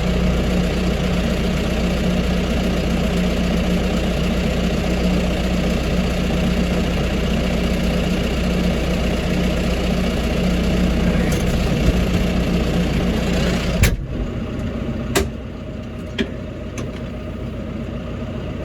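Tractor engine running steadily with a constant hum. About fourteen seconds in there is a sharp click, the engine sound drops to a quieter, lower running, and a couple of clicks follow.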